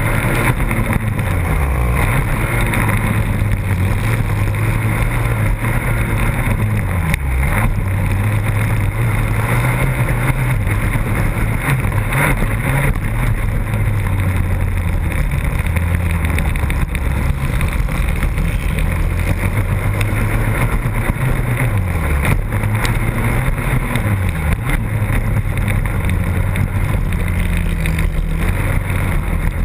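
Racing quad's engine heard from a camera mounted on the machine, running hard on a dirt track; its pitch drops and climbs back several times as the throttle is rolled off and opened again.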